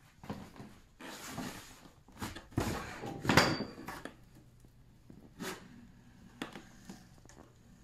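Rustling and a series of knocks and clunks in a small room, the loudest a sharp knock about three and a half seconds in.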